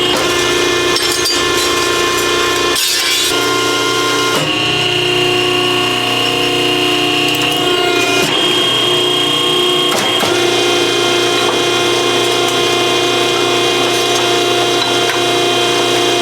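A power tool running steadily, its whine shifting in pitch a few times.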